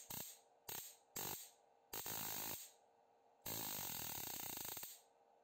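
Spark gap of a small quenched-spark-gap transmitter firing on a 30 kV supply: five bursts of rapid crackling sparkovers, the last and longest about a second and a half. The spark rate is set by the supply's output voltage.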